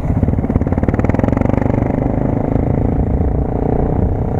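Honda XR250 Tornado's single-cylinder four-stroke engine running steadily under way, with a rapid even beat of firing pulses.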